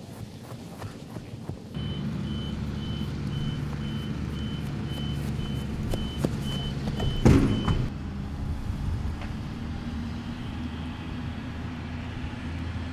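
A vehicle engine running steadily with a backup alarm beeping about twice a second; the beeping stops about eight seconds in, just after a loud knock.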